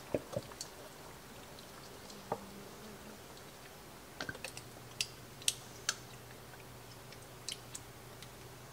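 Faint scattered clicks and drips as heavy cream is poured in a thin stream from a carton into a Dutch oven of warm melted butter and cream cheese. A low steady hum comes in about halfway.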